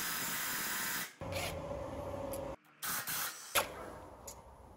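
Air ratchet running on a brake caliper bolt in three bursts: a steady hiss of exhaust air for about a second, a second burst with a steady whine, and a short third one. Faint rubbing and clicks follow as the loosened bolt is drawn out by hand.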